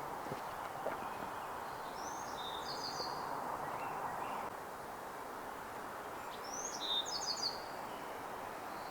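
A small bird calling twice, about four seconds apart, each phrase a quick high rising note followed by a few rapid short notes, over a steady outdoor background hum.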